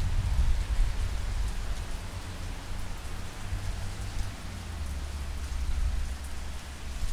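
Steady rain falling on pavement, an even hiss throughout, with a low rumble underneath.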